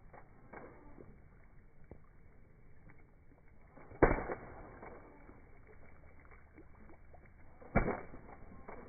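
A sneaker stamping into shallow puddles on wet asphalt: two sharp, loud splashes, about four seconds in and again near the end, with faint footsteps on the wet ground between.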